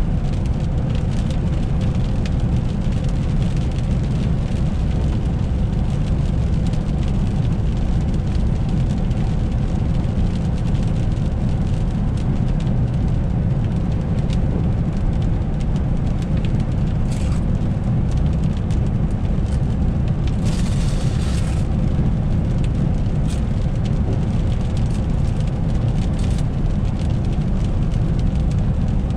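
Car driving on a wet road, heard from inside the cabin: steady low rumble of tyres and engine, with scattered faint ticks. A brief hiss rises over it about twenty seconds in.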